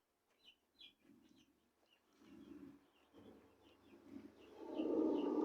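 Birds chirping a few times, then water being poured into a container to mix the medicine. The pouring starts about two seconds in, grows much louder in the last second or so, and covers the chirps.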